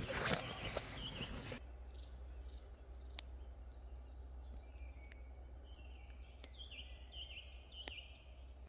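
Footsteps through leaf litter on the forest floor for about a second and a half, then an abrupt cut to woodland birdsong: a songbird repeating short falling chirps, with a few sharp ticks, over a low steady hum.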